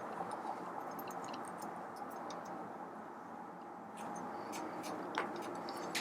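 Scattered light clicks and taps of coffee grinder parts and wiring being handled during disassembly, over a faint steady hiss, with one sharper click about five seconds in.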